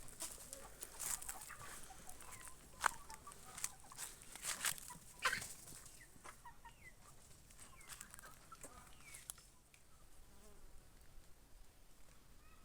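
Layer and broiler chickens clucking softly. Sharp clicks and taps come through the first half, the loudest two about three and five seconds in.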